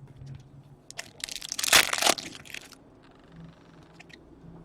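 A card-pack wrapper crinkling and crunching as it is handled, in a burst lasting about a second and a half, starting about a second in.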